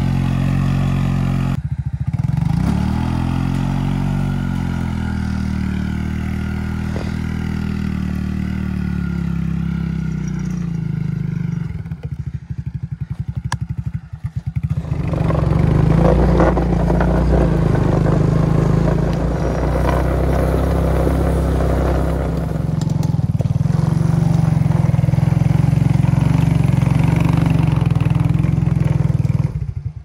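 Four-wheeler (ATV) engine running under load while skidding logs on chains along a dirt track. The engine eases off and sputters for a few seconds about twelve seconds in, then pulls harder again.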